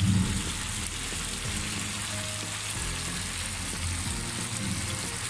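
Boal fish pieces frying in oily spiced gravy in a pan, with a steady, even sizzle and bubbling.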